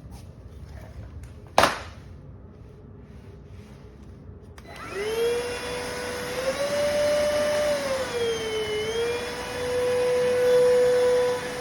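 A sharp click, then the iwoly C150 cordless stick vacuum's motor starts about halfway through. It spins up to a steady whine over a rushing of air, and its pitch drops briefly and recovers near the end.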